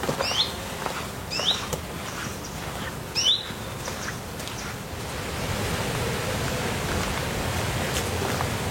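A bird gives three short, high chirps in the first few seconds over a steady rushing noise. The noise grows a little louder about halfway through.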